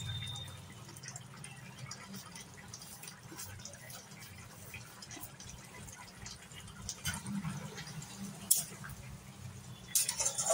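Thin fish curry simmering in a kadai with soft bubbling, and a few light taps of a spatula against the pan as it is stirred.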